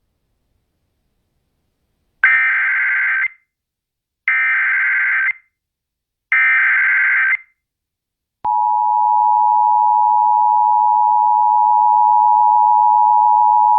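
Emergency Alert System broadcast: three one-second bursts of SAME header data, a buzzy digital warble, about a second apart, encoding a flash flood warning. About eight seconds in, the steady two-tone EAS attention signal begins and holds.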